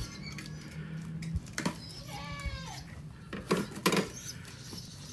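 Sharp clicks and clinks of handling noise, several short separate knocks, with a brief squeaky call that falls in pitch about two seconds in.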